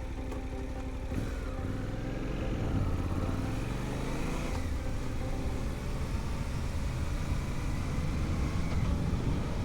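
Suzuki V-Strom 800DE's 776 cc parallel-twin engine idling, then pulling away about a second in, its pitch rising as the bike accelerates, with wind noise building.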